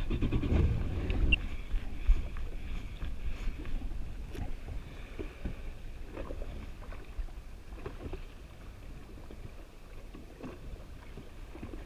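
2019 Yamaha WaveRunner FX HO jet ski engine running at low speed, dying away over the first couple of seconds as it is throttled back. Then wind and water noise as the ski drifts, with scattered light clicks and knocks.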